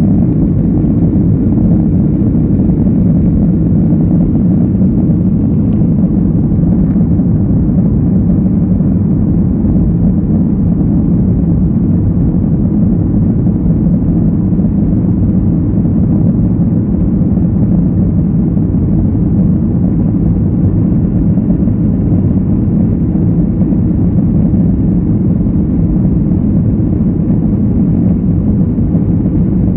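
Airliner cabin noise during the climb after takeoff: the engines and rushing airflow make a loud, steady, deep drone that does not change.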